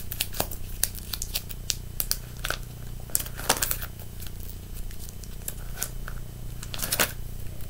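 Clear plastic binder sleeve pages full of trading cards crinkling and clicking as they are handled and turned, in irregular short crackles over a low steady hum.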